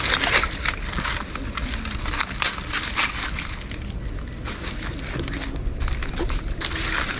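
Dry leaves and brush rustling and crackling as someone moves through them, in many irregular small crackles.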